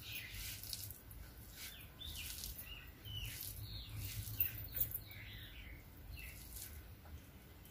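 Fingers squeezing and mixing cooked rice with curry on a plastic plate, giving a string of soft, wet squishes and clicks, over a low steady hum.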